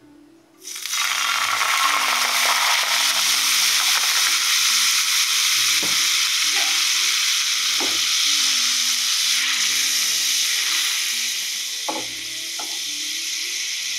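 Coconut milk poured into a hot frying pan, sizzling hard: a loud frying hiss that starts suddenly under a second in and goes on steadily, easing slightly near the end. Soft background music plays underneath.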